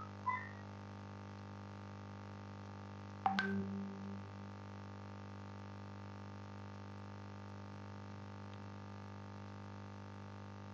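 Steady electrical hum, with a short high blip just after the start and a sharp click about three seconds in, followed by a brief low tone.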